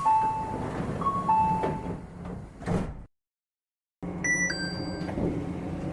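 Door chime of a Yamaman 1000 series people-mover: a two-note descending electronic chime played twice, then the sliding doors close with a thump. After a second of silence, a different train's door signal begins: a few short, high electronic tones over a steady hum, the start of the Nippori-Toneri Liner 300 series door chime.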